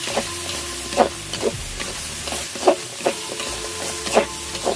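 Chicken and radish sizzling in a pan while a cooking utensil stirs them, clanking and scraping against the pan about six times, roughly a second apart.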